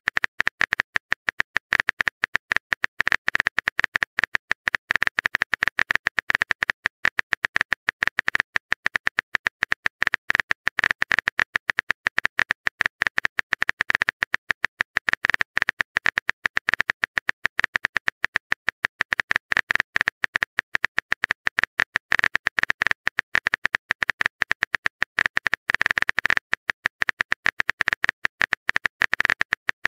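Rapid, continuous clicking, many clicks a second: the keyboard-typing sound effect of a texting-story app.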